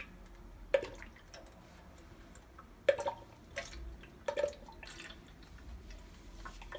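Salt-water enhancer solution poured from a bottle into a water ionizer's enhancer tank, making about five separate glugs and drips.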